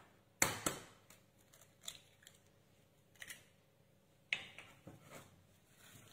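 An egg cracked with two sharp taps against a glass mixing bowl, then a few faint clicks and one sharper knock about four seconds in. Near the end a spatula starts to stir in the bowl.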